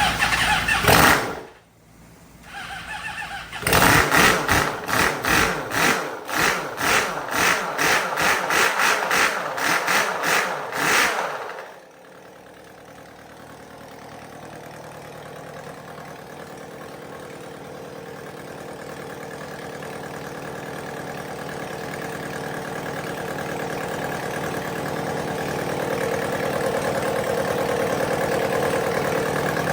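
2005 Honda CBR600RR's inline-four engine firing up after a rebuild and revved in loud blips about twice a second for several seconds. About twelve seconds in it drops to a steady idle that slowly grows louder. It is loud, as expected for this bike.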